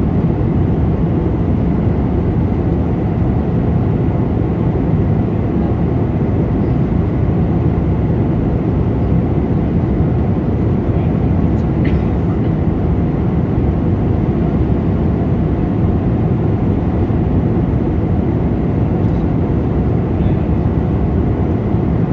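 Steady cabin noise inside an Airbus A320-214 airliner in flight: a constant deep rush of airflow and engine drone that does not change.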